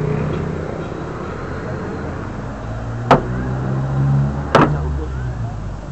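Two sharp clicks about a second and a half apart, over a steady low hum.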